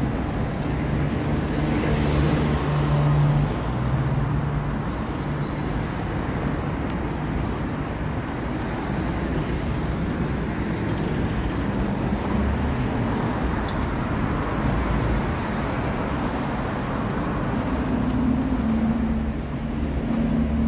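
Street traffic: car engines running and passing on a city street as a steady rumble, with an engine hum standing out for a few seconds near the start and again near the end.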